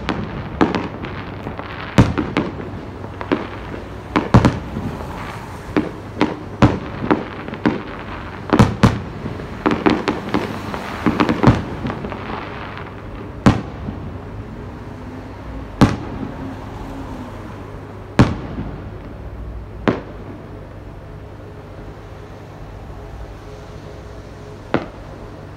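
Aerial fireworks bursting: a fast run of sharp bangs, some in quick clusters, that thins out after about twelve seconds to single bangs a few seconds apart.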